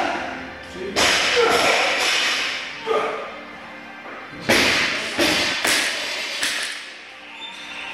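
Barbell with rubber bumper plates being lifted overhead and lowered: a series of sharp thuds and clanks from the bar and plates, the two strongest about a second in and about halfway through.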